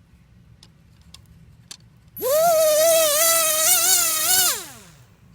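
Small Flybrix drone motor, one of the good red-and-blue-wired ones, spinning up about two seconds in to a steady high whine, holding with a slight wobble for about two seconds, then winding down in pitch. It runs normally: the faulty motor is the black-and-white-wired one.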